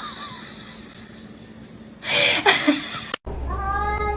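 A brief loud noisy burst about two seconds in, then, after a cut, a cat meowing in one drawn-out call near the end over a steady low hum.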